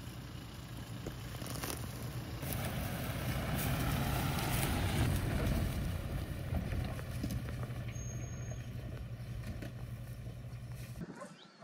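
A motor running steadily with a low hum, swelling louder toward the middle and then cut off abruptly near the end.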